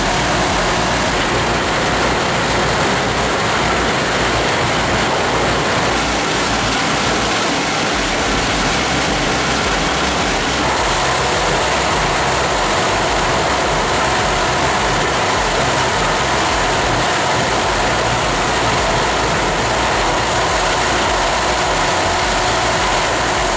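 Industrial wood chipper running steadily while chipping sawmill waste into biomass chips: a dense, even mechanical noise with a faint high whine, shifting slightly in tone about ten seconds in.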